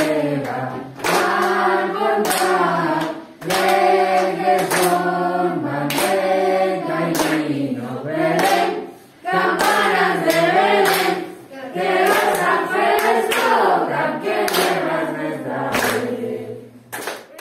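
A class of children singing a Spanish Christmas carol (villancico) in unison, clapping along in rhythm. The singing and clapping stop abruptly near the end.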